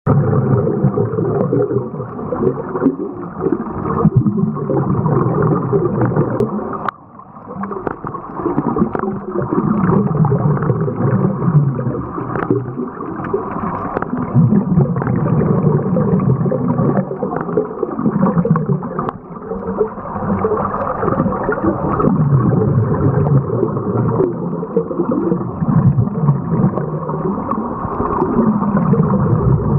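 Scuba regulator breathing heard underwater: exhaled bubbles gurgling and rumbling, swelling and easing with each breath, with a brief lull about seven seconds in.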